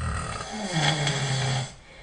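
A sleeping man snoring: one loud snore about a second and a half long that starts suddenly and drops in pitch partway through.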